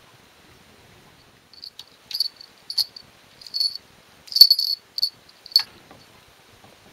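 A small bell jingling in short, quick shakes as a cat plays, starting about a second and a half in and loudest near the middle, with a few sharp clinks among the jingles.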